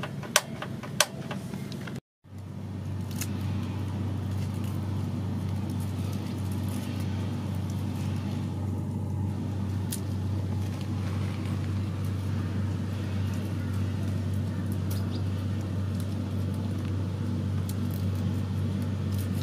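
A few sharp knocks in the first two seconds, then, after a brief break, a steady low mechanical hum like a running motor that holds level without rising or falling.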